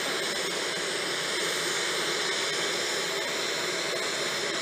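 Steady turbine-engine noise from aircraft on an airport apron: an even, unbroken hiss with faint high steady whine tones on top.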